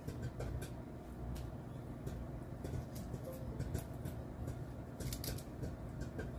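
Hard-boiled eggshell being cracked and peeled by hand, giving small irregular clicks and crackles over a steady low hum.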